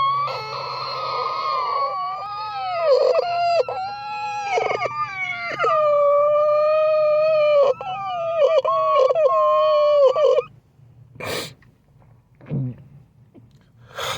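Long high-pitched wailing howl, held in drawn-out notes that slide up and down and break off briefly several times, stopping abruptly about ten and a half seconds in.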